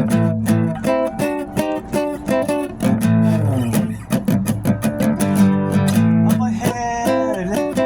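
Band music led by guitar: quick plucked and strummed notes, with a few notes sliding downward in pitch around the middle and near the end.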